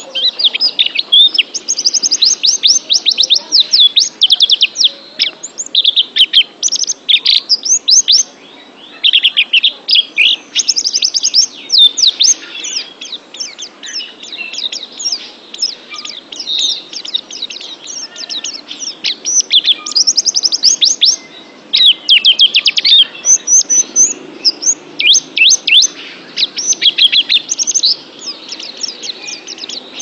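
White-eye (pleci) singing: fast, twittering runs of rapid high chirps in repeated bouts, broken by brief pauses.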